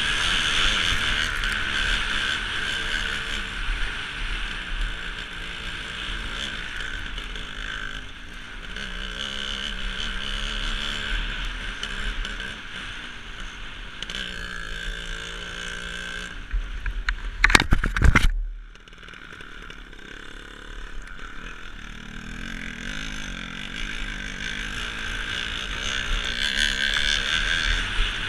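Motocross bike engine running and changing revs as it tows a skier on a rope, heard under a steady hiss of skis on snow and wind on the microphone. A short, loud burst of rumbling knocks comes about 17 seconds in, after which it is quieter for a while.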